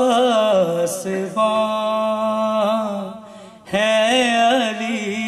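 A man's unaccompanied voice chanting a melodic devotional recitation in long, ornamented phrases, holding one note steady in the middle. He breaks off briefly a little after three seconds in and starts a new phrase.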